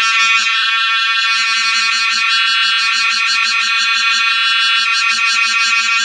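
Cicada singing: a loud, continuous high-pitched buzz with a rapid, even pulsing.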